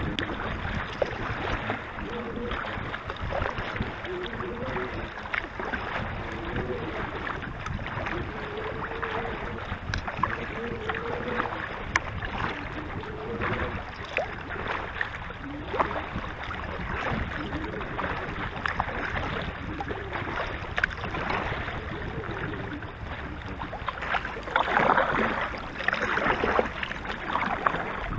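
Lake water sloshing and lapping against a moving kayak's hull, with the splash of paddle strokes, heard close up from the bow deck. The sloshing grows louder for a couple of seconds near the end.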